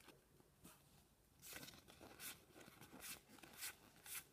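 Faint rustling of a foil Pokémon booster pack being handled and opened, then trading cards sliding against each other as they are flipped through, in a series of soft swishes starting about a second and a half in.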